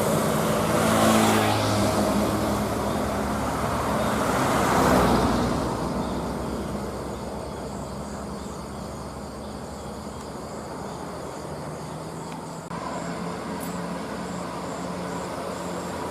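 A large bus passing close by. Its engine and tyre noise swells to a peak about five seconds in, then dies away to a quieter, steady traffic rumble. No horn melody sounds.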